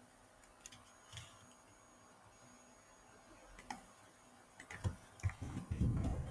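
A few separate computer mouse clicks, then typing on a computer keyboard, a quick run of key taps starting about five seconds in.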